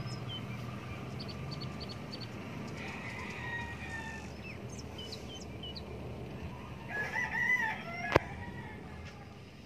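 A rooster crowing once, about seven seconds in, with short high chirps of small birds in the first few seconds and a sharp click just after the crow.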